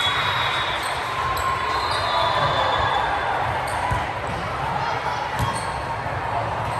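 An indoor ball game on a gym court: a handful of sharp ball hits and short shoe squeaks over steady crowd chatter echoing in the hall.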